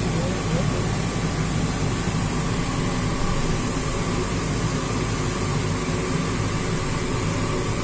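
Steady mechanical hum with air noise inside an enclosed Ferris wheel gondola, even throughout with a few faint held tones.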